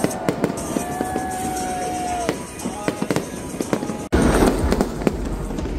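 Fireworks going off: many sharp cracks and pops, mixed with long whistling tones from rising whistle shells. About four seconds in, the sound cuts off abruptly and a louder stretch of booming bursts follows.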